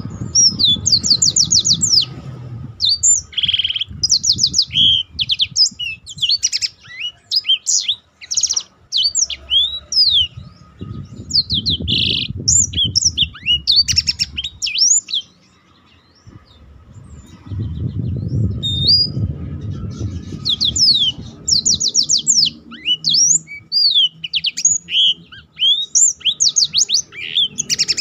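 Black-throated canary singing a long, fast rolling song of high trills and sharp chirps, almost unbroken apart from a couple of short breaks.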